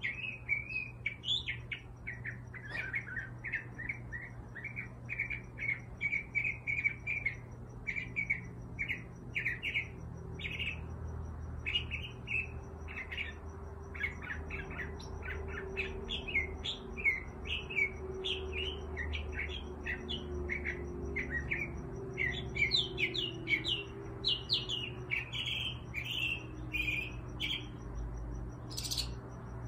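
A flock of house finches chirping: many short, quick cheeps one after another, thickest in the second half, over a steady low hum.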